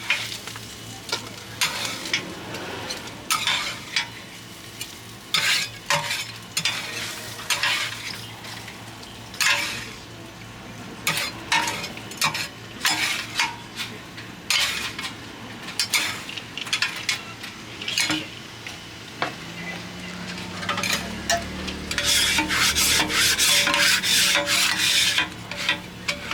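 Organ meat frying on a hot iron griddle, with metal spatulas scraping and knocking against the plate about once a second as the meat is stirred and turned. Near the end the sizzle swells loud for a few seconds.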